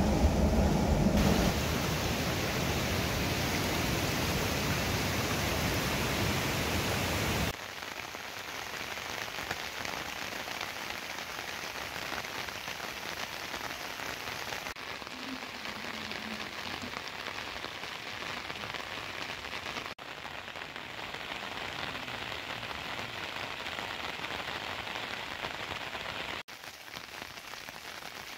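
Steady rain falling, an even hiss of drops. The sound changes suddenly every few seconds as one take cuts to the next, and it is loudest in the first seven seconds, with a low rumble at the very start.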